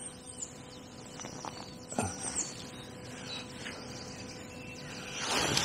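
Quiet waterside ambience with a few faint, high bird chirps and a soft click about two seconds in, then rustling near the end as the fishing rod is handled.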